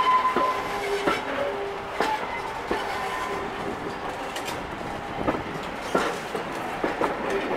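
Wheels of a moving heritage passenger coach clicking over rail joints, a click or a quick pair of clicks about once a second over a steady running rumble, heard from inside the coach. Faint wheel-squeal tones fade out near the start.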